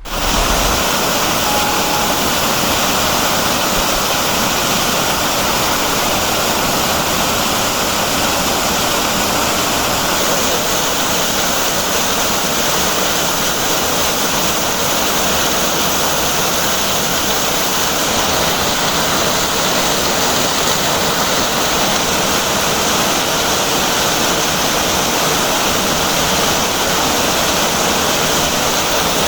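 Waterfall pouring: a loud, steady noise of falling water that starts suddenly and holds without change.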